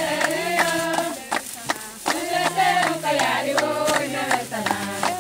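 A group of voices singing a chant together in long held notes, with steady rhythmic hand clapping about three times a second.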